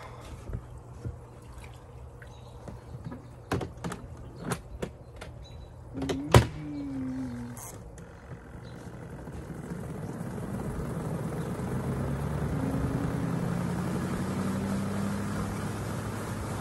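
Portable twin-tub washing machine being set going for a rinse: a run of clicks and knocks from its lid and controls, with a sharp knock about six seconds in, then the machine starting up, its motor hum and a rushing noise building and holding steady through the second half.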